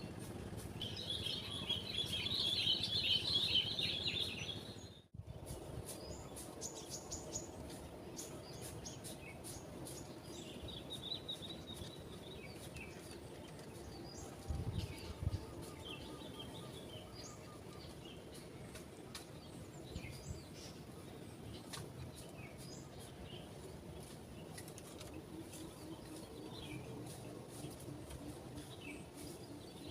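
Small birds chirping: a dense run of rapid high calls in the first few seconds, then scattered faint chirps, with a brief low thump about halfway through.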